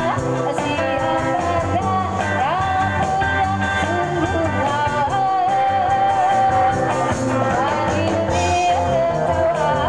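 A band playing a song, with a singer's melody held and sliding over the backing.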